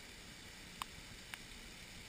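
Steady faint hiss of rain and waterfalls pouring down sandstone canyon walls during a flash-flood storm, with two short ticks about a second apart near the middle.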